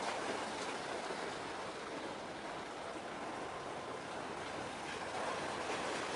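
Steady rushing outdoor harbourside ambience with no distinct engine note, easing slightly around the middle.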